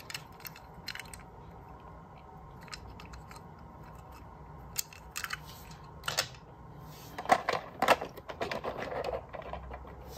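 Small toy cars being handled: scattered light clicks and knocks, a few more of them in the second half, over a low steady room hum.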